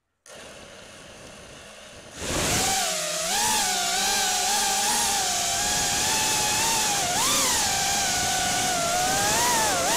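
Brushless motors and 5-inch three-blade props of an FPV racing quadcopter, recorded from the onboard camera: a faint hum at first, then about two seconds in the throttle comes up for takeoff and a loud motor whine sets in, its pitch rising and falling with the throttle.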